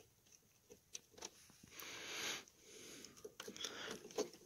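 Faint clicks and handling of small insulated crimp connectors being pushed into a relay socket in a car's under-hood fuse box, with a short breath about two seconds in.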